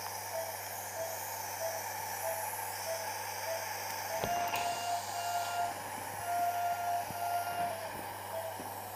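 Operating-theatre patient monitor beeping steadily, about two short beeps a second, with a few longer tones in the middle, over a steady hiss and low hum of theatre equipment.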